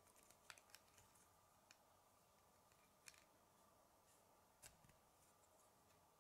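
Faint, sharp clicks of K'nex plastic rods and connectors being handled and snapped together: a few in quick succession in the first second, then single clicks about three seconds in and near the five-second mark.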